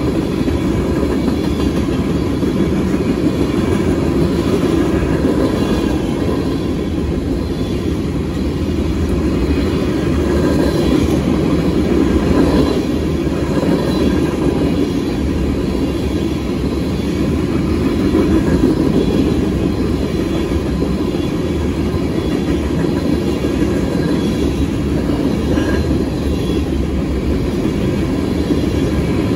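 Empty oil-train tank cars rolling past, their wheels rumbling steadily on the rails.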